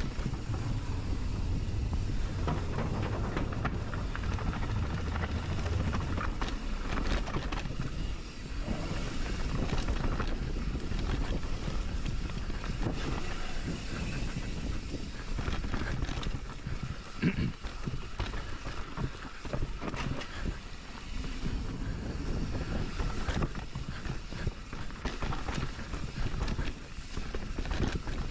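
Mountain bike descending a rough dirt and rock trail: tyres rolling and the bike rattling over bumps, with many short knocks and one harder knock about two-thirds of the way in, and wind buffeting the microphone throughout.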